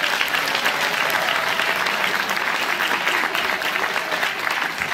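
Audience applauding steadily, with some voices mixed in.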